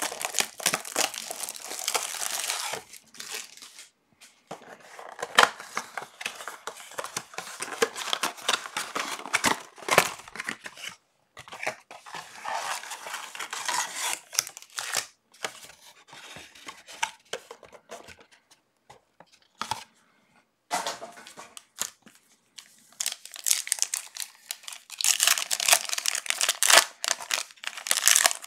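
Trading card packs and blaster box packaging being ripped open: foil wrappers tearing and crinkling in bursts, with short pauses between.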